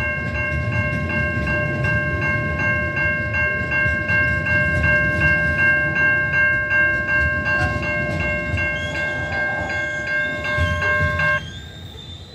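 Level-crossing warning bell ringing in rapid, even strokes over the low rumble and clatter of coal hopper wagons rolling past. Bell and rumble stop together, suddenly, about eleven seconds in, as the last wagon clears the crossing.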